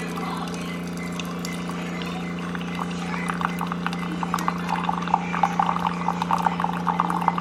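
A steady hum with a dense crackling or bubbling, liquid-like sound that starts about three seconds in and grows thicker.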